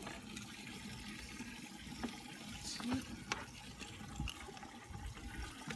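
Water running and sloshing in a bass boat's livewell as a hand reaches in among the fish, with a few light knocks.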